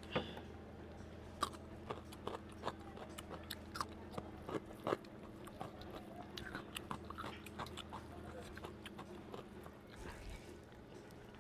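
Close-miked eating: crisp bites and chewing of raw cucumber, loudest and most frequent in the first half, then softer, smaller sounds of rice and curry being mixed and eaten by hand.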